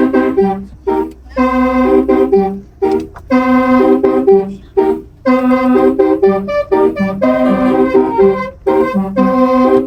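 Bus telolet horn: a set of multi-tone air horns playing a quick tune in short, organ-like notes broken by brief gaps, the phrase repeated over and over.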